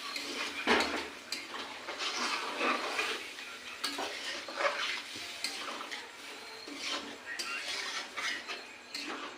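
A metal spoon stirring chicken curry in a cooking pot, scraping and clattering against the pot at an irregular pace, with a faint sizzle underneath as the browned meat cooks in the water just added.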